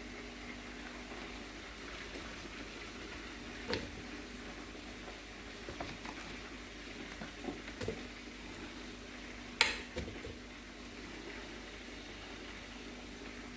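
Food sizzling steadily as it fries in oil in a pan, with a few scattered knocks and a sharp clatter about ten seconds in.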